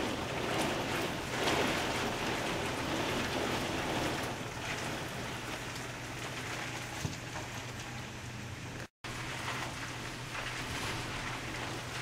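Heavy storm rain pouring down in strong wind: an even rushing hiss that swells in gusts over the first few seconds and eases a little after about four seconds. It breaks off for an instant about nine seconds in.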